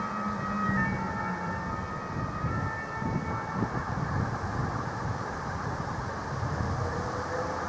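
Fire engine's siren faint and fading out within the first couple of seconds, over a steady rumble of road vehicle noise.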